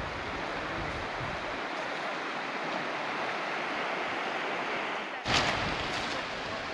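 Fast-flowing river water rushing steadily, with a brief louder burst of noise about five seconds in.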